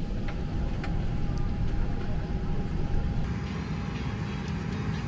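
Steady low rumble of a Boeing 737-900's cabin on the ground before takeoff, with a faint steady whine that stops about three seconds in and a few light clicks.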